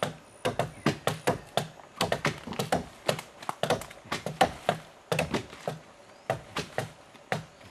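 Hand tools chipping at the wooden hull of a dugout canoe: rapid, irregular wooden knocks, several a second, from more than one worker.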